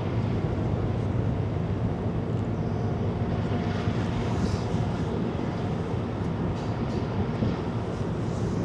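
Steady low engine rumble of ships moving in the harbour, with no break or change.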